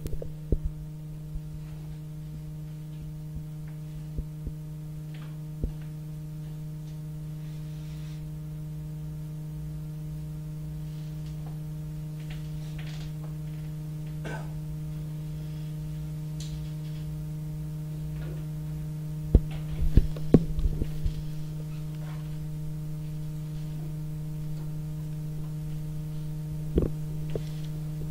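Steady low electrical hum with a couple of fainter overtones, broken by scattered soft clicks and a short cluster of louder knocks about two-thirds of the way through.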